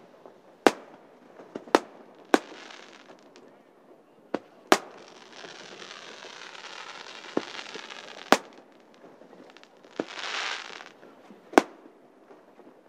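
Aerial fireworks shells bursting overhead: about half a dozen sharp bangs a second or two apart, with smaller pops between them and stretches of hissing crackle from the bursting stars.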